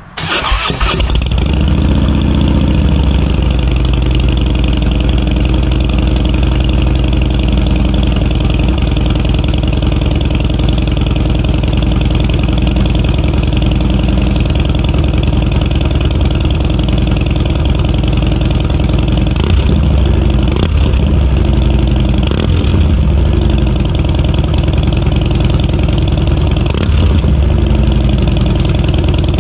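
2015 Harley-Davidson Dyna Wide Glide's Twin Cam 103 V-twin starting up through Vance & Hines 3-inch slip-on mufflers with the baffles in, then idling steadily. The throttle is blipped a few times about twenty seconds in and once more near the end.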